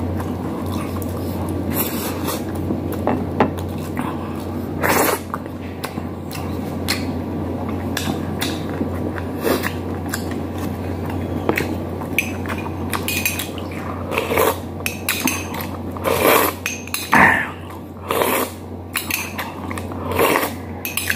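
Dishes and cutlery clinking during a meal: fingers and a spoon against ceramic plates and a small ceramic cup, sharp clicks scattered through and coming more often in the second half, over a steady low hum.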